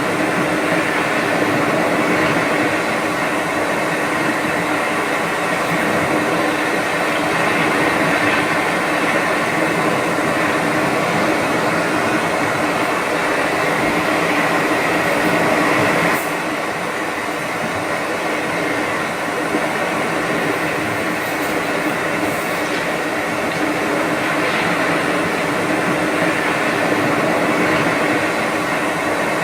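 Steady droning hum over an even wash of noise, a continuous sleep and relaxation sound that resembles a train cabin's rumble. The tone and level shift slightly about halfway through.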